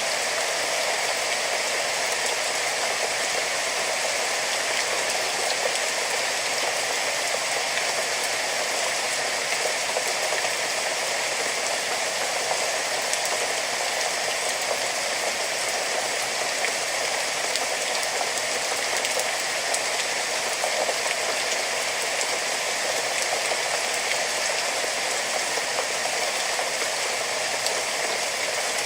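Steady rain falling: an even hiss of many drops with fine pattering, holding the same strength with no change.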